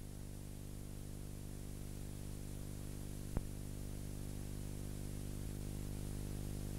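Steady electrical hum over tape hiss, the background noise of a transfer of silent film footage, with a sharp click about three and a half seconds in.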